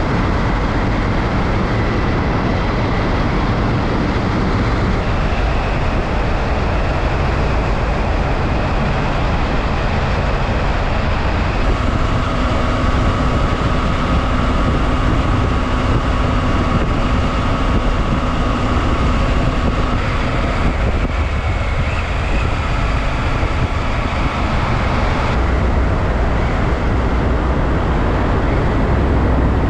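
Motorcycle riding at road speed: a steady rush of wind and road noise with the engine's drone underneath, and a faint steady tone held from about the middle of the run.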